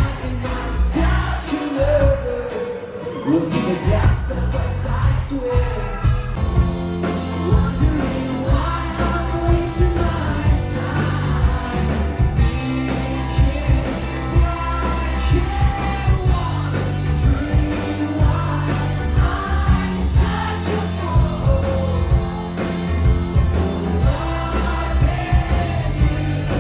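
Live rock band playing a song: a singer over guitar, drums and bass. The accompaniment is sparse at first, and the full band with a steady beat comes in about four seconds in.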